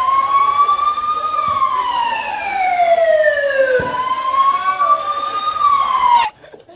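A wailing siren, its pitch sweeping slowly up and down twice, cutting off abruptly near the end.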